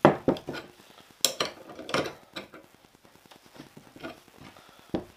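Irregular metallic clicks and clinks of a spanner working the forcing screw of a bearing puller, drawing the bearing off a motorcycle steering stem.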